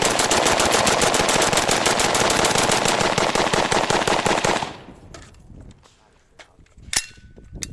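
Rapid gunfire: a long, unbroken string of shots at about ten a second that stops abruptly about four and a half seconds in. A single sharp crack follows near the end.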